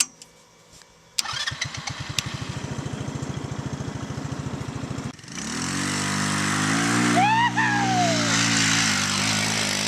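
An engine cranked by its starter, about eight to ten pulses a second, for roughly four seconds. It then catches and runs steadily. A short tone that rises and falls is heard over the running engine about seven seconds in.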